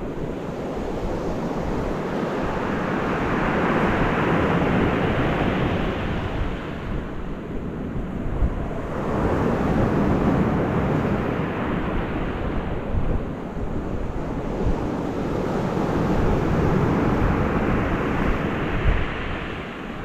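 Sea waves breaking against rocks on the shore, the wash swelling and fading in about three long surges, with wind buffeting the microphone.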